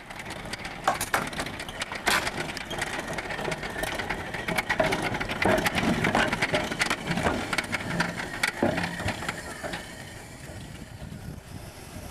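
Running gear of a 1908 Orenstein & Koppel 0-4-0 narrow-gauge steam locomotive clanking and knocking as it rolls slowly: a dense run of sharp knocks from the wheels and coupling rods that eases off near the end.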